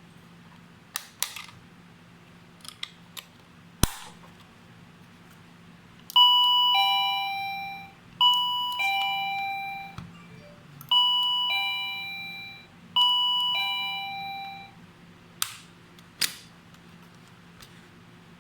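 XINHUI-610B wireless doorbell chiming a two-tone ding-dong, a higher note then a lower one, four times about two seconds apart, each ring fading away. There are a few sharp clicks before and after the chimes.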